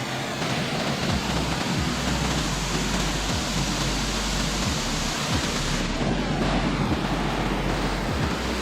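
Steady roar of a waterfall's rushing water, with uneven low rumbles of wind on the microphone.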